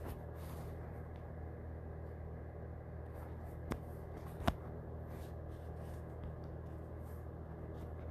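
Steady low hum of room background, with two short sharp clicks near the middle, a little under a second apart.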